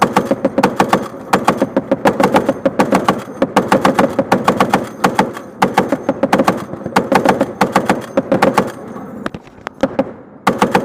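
M2 Browning .50 caliber heavy machine gun firing in rapid bursts of one to two seconds with short pauses between, five bursts in a row, then a lull of about two seconds and one more short burst at the end.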